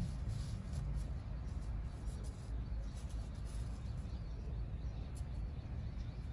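Outdoor background: a steady low rumble with faint, short high-pitched chirps scattered through it.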